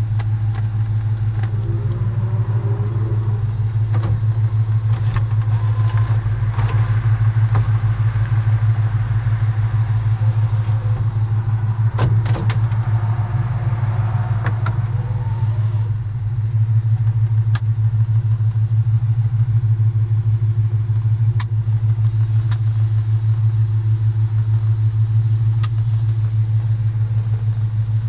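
Chevrolet 350 small-block V8 idling steadily, heard from inside the cab, with a few sharp clicks from the dash knobs and switches.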